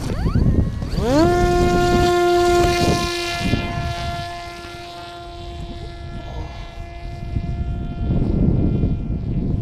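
Parrot Disco fixed-wing drone's electric motor and propeller spooling up into a rising whine about a second in, then holding a steady pitch and fading toward the end. Wind buffets the microphone before and after.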